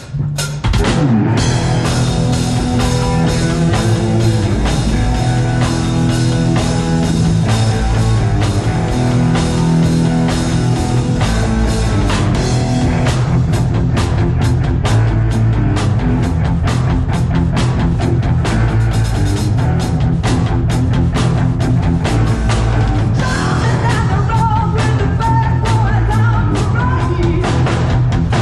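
Rock band playing live at full volume through a PA: drum kit keeping a steady beat under guitars and bass. The band comes in together about half a second in.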